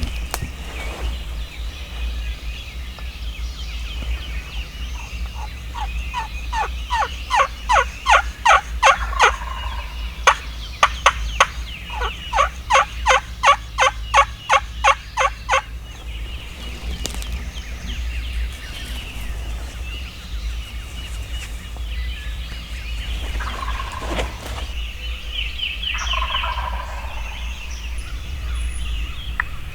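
Wild turkey gobblers gobbling, several rapid rattling gobbles running together from about six seconds in to about sixteen, answered later by a few shorter calls. Songbirds chirp faintly throughout.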